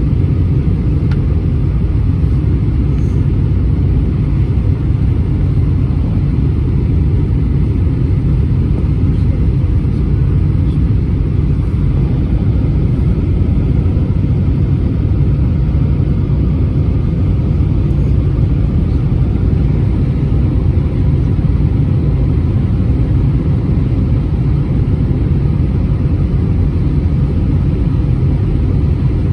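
Steady low rumble of cabin noise inside an Airbus A320-231 airliner, from its engines and the airflow around the fuselage.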